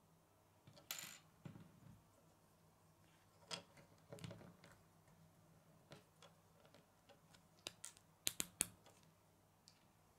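Small plastic Lego pieces clicking and tapping as they are handled and pressed together on a wooden tabletop: faint scattered clicks, with a quick run of three sharp clicks about eight seconds in.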